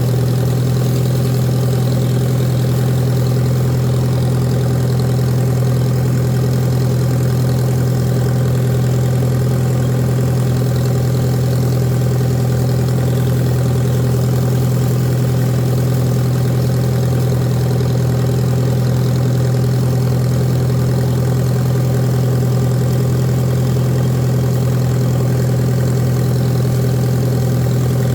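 Farmall tractor engine running at a steady speed, a constant low hum with no change in pitch or load.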